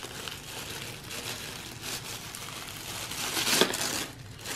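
Tissue paper rustling and crinkling as it is unfolded and pulled open by hand, louder about three and a half seconds in.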